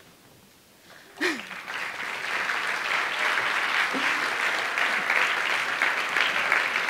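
Audience applauding, starting about a second in just after a brief voice, then building into steady clapping.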